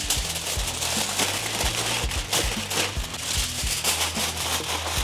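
Aluminium foil crinkling and crackling as it is folded tightly around a whole cooked chicken, over background music with a steady bass line.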